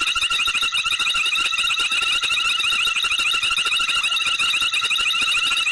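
Dense night chorus of small calling animals: a steady, fast-pulsing trill layered in several high-pitched bands.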